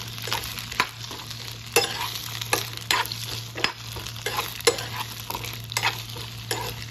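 Cut okra sizzling in coconut oil in a non-stick pan while a steel spoon stirs it, scraping and clicking against the pan at irregular moments. The okra is being lightly sautéed, not browned. A steady low hum runs underneath.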